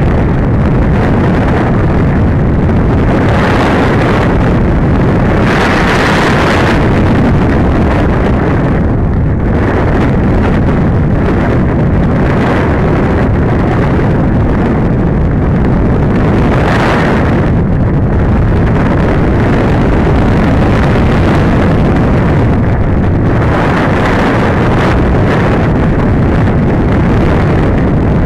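Loud, steady rush of airflow buffeting the microphone of the camera mounted on a gliding RC sailplane. The hiss swells and eases every few seconds.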